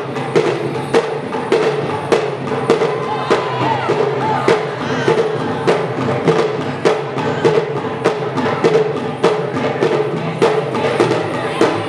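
Dance music with a steady percussion beat: sharp, even clicks like a wood block, about two a second, over drums.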